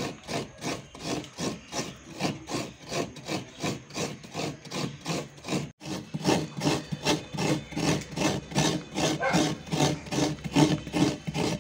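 Halved coconut scraped against a coconut grater, rasping in an even rhythm of about three strokes a second, with a brief break about six seconds in.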